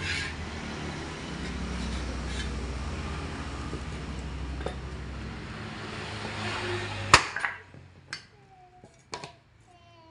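Spoked motorcycle wheel handled on its axle stand: a steady hum, then a sharp metallic knock about seven seconds in, followed by a few lighter clicks.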